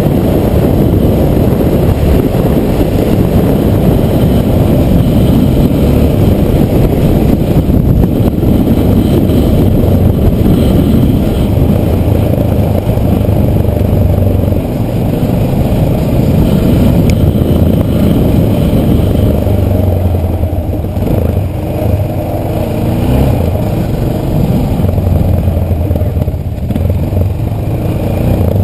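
Motorcycle engine running at riding speed on a gravel dirt track, buried in heavy wind buffeting on the onboard camera's microphone.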